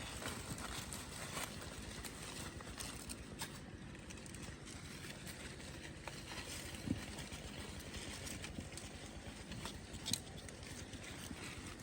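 Goats browsing on cut trumpet-tree and mango branches: leaves rustling, with scattered small clicks and snaps and a sharper knock about seven and again about ten seconds in.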